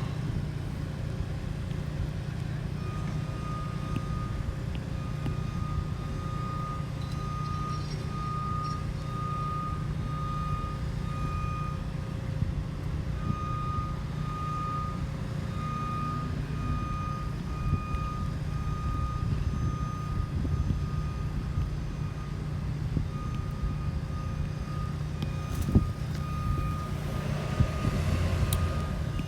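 Construction vehicle's reversing alarm beeping, one high tone repeating a little over once a second, starting a few seconds in and pausing briefly about halfway through, over a steady low rumble.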